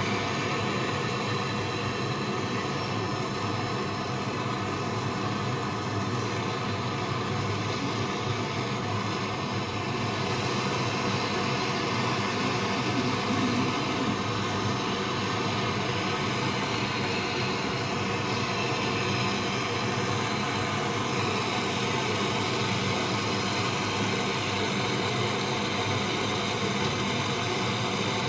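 Steady mechanical running noise with a constant hum of several tones, unchanging throughout.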